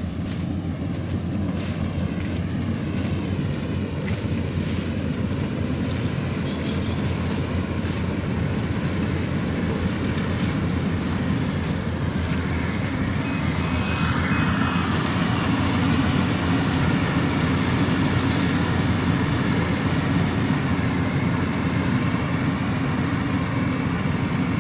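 Rice combine harvester running steadily while harvesting, its engine a continuous low drone that grows slightly louder about halfway through.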